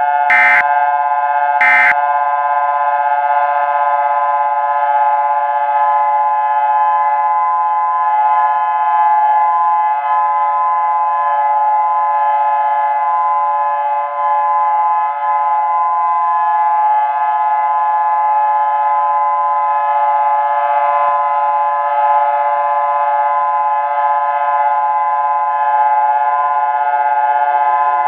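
Civil defense siren sounding, several steady pitches held together like a chord. Two short electronic bursts come in the first two seconds, and in the last few seconds a lower tone starts falling in pitch.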